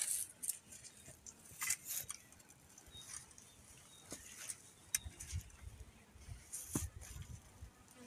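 Bees buzzing faintly, with scattered rustles and soft knocks from someone working in dry grass and soil.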